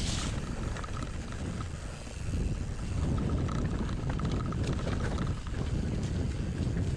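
Wind buffeting the microphone over the rumble of a mountain bike rolling along a dirt trail, with a few small rattles.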